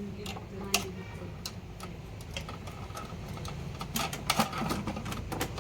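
Irregular light clicks and taps, bunched more closely about four seconds in, over a low steady hum.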